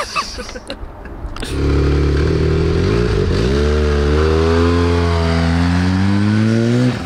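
Turbocharged Arctic Cat Z1 three-cylinder engine in a side-by-side pulling away: it comes in suddenly about a second and a half in, dips briefly, then rises steadily in pitch as it accelerates, and cuts off suddenly near the end.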